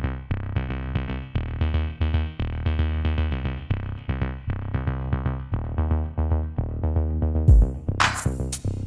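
Electronic background music: synthesizer chords over a drum-machine beat, with a fuller, brighter drum section coming in near the end.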